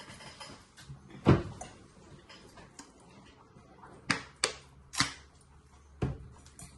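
A few sharp knocks: one loud knock about a second in, then four lighter ones close together a little past the middle.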